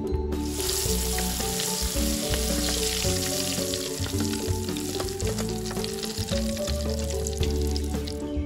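Shallots, garlic, bird's-eye chilies and tomato sizzling in hot oil in an aluminium wok. A metal spatula and a perforated strainer make scattered clinks and scrapes against the pan. The sizzle starts about half a second in, over background music.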